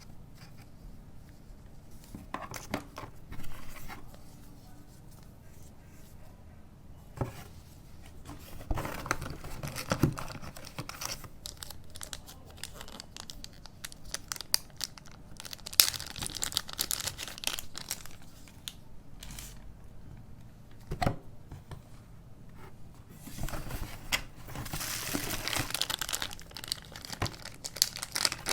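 Camera packaging being handled and unwrapped: irregular crinkling and tearing of wrapping, with scattered light knocks and clicks. The crinkling comes in several longer spells, the last and longest near the end.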